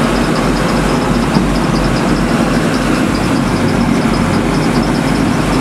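Fishing boat's engine running steadily at trolling speed, with a low, even pulsing throb.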